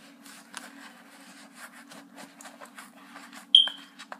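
Rustling and light clicks from a sneaker and its packaging being handled, with one short, high-pitched squeak about three and a half seconds in, the loudest sound.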